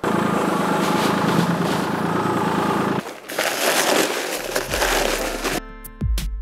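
A Kubota compact tractor's diesel engine running steadily, cutting off abruptly after about three seconds. Then paper bags of dry concrete mix are emptied, with rustling and the gritty pour of the mix. Acoustic guitar music comes in near the end.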